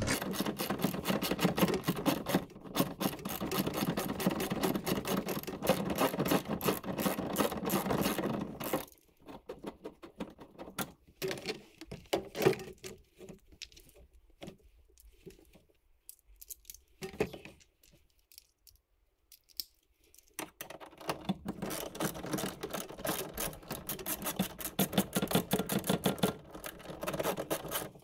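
Ratchet wrench clicking in quick runs as the seat belt anchor bolts are turned out, with scattered metal clinks and rattles of the belt hardware. The clicking stops for a quieter stretch in the middle and starts again about 21 s in.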